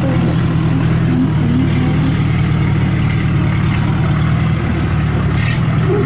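Kubota RT120 single-cylinder diesel engine running steadily as it drives a converted harvester used as a tracked carrier, loaded with rice sacks. A brief click sounds near the end.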